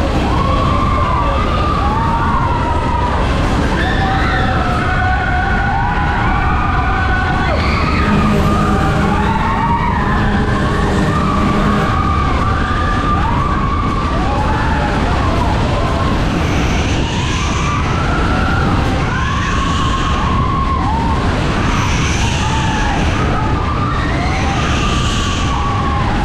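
Matterhorn fairground ride running at speed: riders screaming and whooping over a steady low rumble. In the second half a rushing sound swells about every two and a half seconds as the cars go round.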